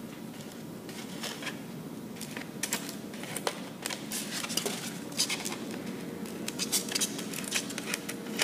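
Expanded polystyrene foam crackling and ticking as its surface is gouged and handled with a hot-wire foam tool to distress it. The crackles come irregularly and grow denser about halfway through.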